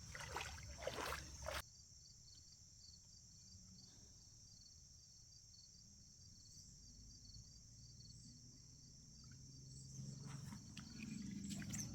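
Steady high-pitched insect chorus trilling in a regular pulse, with a few short knocks and rustles in the first second and a half and a faint low rumble near the end.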